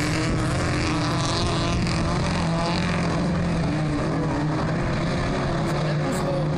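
Engines of several autocross race cars running together as the pack drives around a dirt track, a steady blended drone whose pitches waver slightly.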